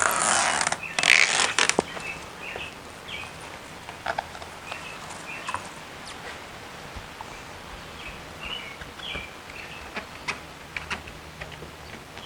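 Loud rustling for the first couple of seconds, then small birds chirping in short repeated notes, with a few light clicks and taps.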